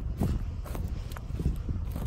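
Footsteps on a dry forest floor of pine needles and moss, about two steps a second, over a steady low rumble.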